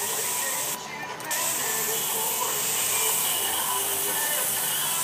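Garden hose spraying a jet of water, a steady hiss with a short break about a second in.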